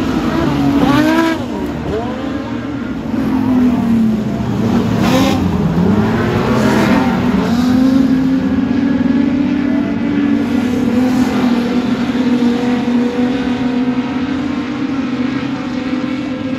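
Production sedan race cars running at speed on a speedway track over a steady engine drone, with cars passing by about a second in and again around five to seven seconds in.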